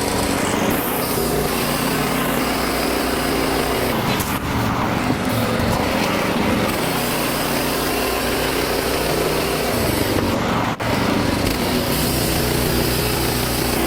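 Wood-Mizer LX55 portable bandsaw sawmill's engine running steadily under load, with a brief break about eleven seconds in.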